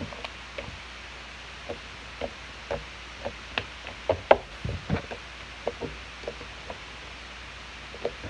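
Irregular light taps and knocks, about twenty of them with uneven gaps: hands working a batch of slime and tapping its container on a tabletop.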